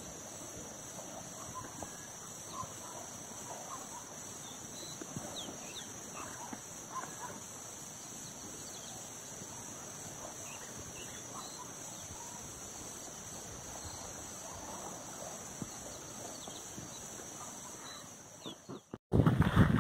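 Open countryside ambience: a steady, high-pitched drone of insects, with faint scattered bird chirps and distant animal calls. Loud rustling takes over abruptly at the very end.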